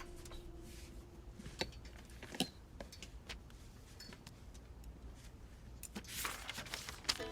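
Quiet indoor room tone with a few soft clicks and knocks, and a short rustling whoosh near the end.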